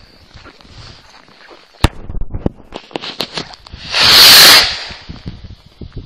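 Fireworks going off: a sharp pop about two seconds in, a scatter of smaller pops and crackles, then a loud rushing hiss lasting under a second just after the four-second mark as a glowing shot streaks across the sky.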